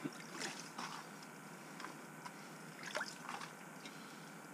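Faint wet handling sounds with a few short soft knocks and splashes as a burbot is rinsed off in the water of the ice hole.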